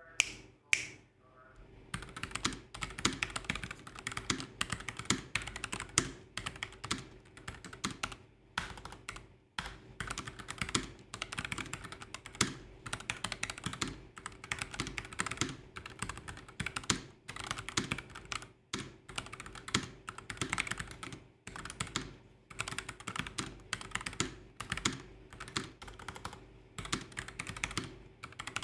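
Typing on a low-profile mechanical keyboard with stock red linear switches: a fast, continuous run of keystroke clicks with short gaps, starting about two seconds in.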